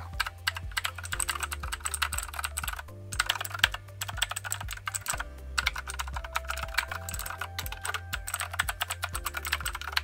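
Fast two-handed typing on a Redragon Daksa tenkeyless mechanical keyboard: a dense, continuous stream of key clicks, with brief pauses about three and five seconds in.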